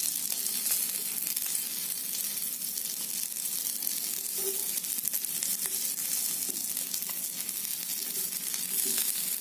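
Chicken pieces sizzling steadily on a hot ridged non-stick grill pan, with a few light taps of metal tongs as the pieces are turned.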